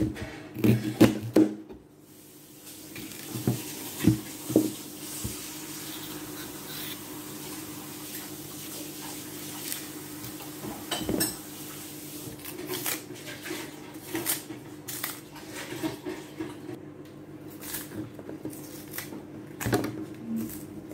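Kitchen knife knocking and cutting on a plastic chopping board as unripe plantains are trimmed and peeled: a cluster of sharp knocks in the first two seconds, two more about four seconds in and another about eleven seconds in. Softer scraping and rustling of peel follow, over a faint steady hum.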